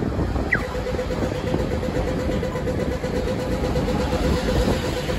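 City bus engine running as the bus drives across the junction and passes close by, a steady hum over low traffic rumble, with a short high squeak about half a second in.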